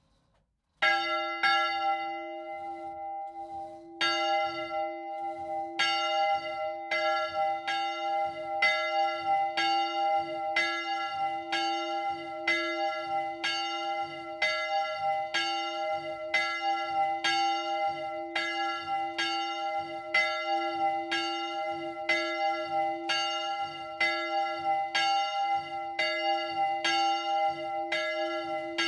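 The smallest of three bronze church bells, cast by the De Poli foundry, swinging electrically in the Friulian full-swing style and rung alone. The clapper strikes once about a second in and again a few seconds later as the swing builds, then settles into a steady stroke roughly every two-thirds of a second, each stroke ringing on into the next.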